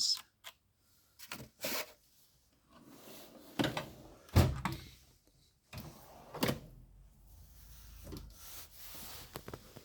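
Metal tool chest drawers sliding and being shut and opened, with a run of clunks and rattles, the loudest about four and a half seconds in, over the low rumble of the drawer slides.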